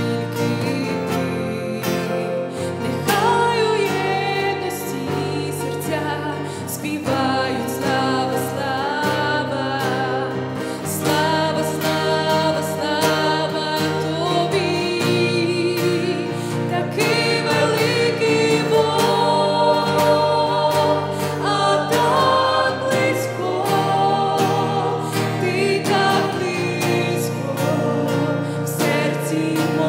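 A choir of young men and women sings a Ukrainian-language worship song. A woman's voice leads on a microphone over strummed acoustic guitar.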